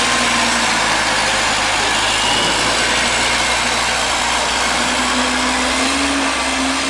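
Diesel engine of a WhiteGMC Amrep automated side-loader garbage truck running under the noise of its dumping arm, then pulling away, its engine note rising about five seconds in.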